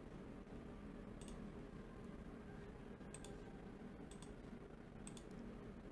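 Faint, sparse clicks from computer controls in use over quiet room tone: a single click about a second in, then a quick pair of clicks about three seconds in and another pair near the end.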